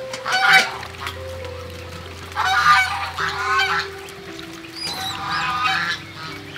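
Farm fowl honking in three bouts of calls: briefly at the start, then a longer bout about two and a half seconds in and another about five seconds in, over faint steady background music.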